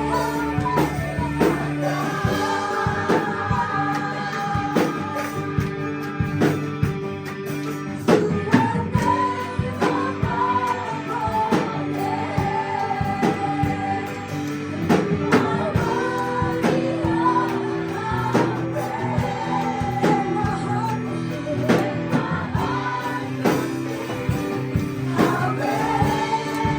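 Live praise and worship music: a band playing with voices singing a melody over a steady beat.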